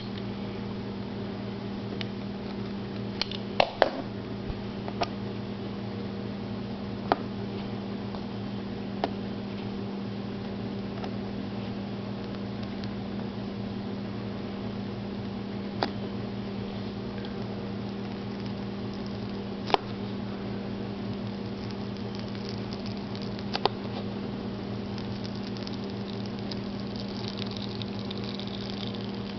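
Scattered sharp clicks and taps from a plastic motor-oil jug being handled over a steady low hum, with faint scratching near the end as the edge of its UPC sticker is picked and lifted.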